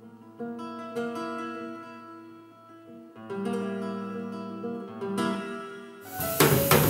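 Acoustic guitar played solo, single plucked notes and chords left ringing. About six seconds in, a drum kit with cymbals comes in loudly.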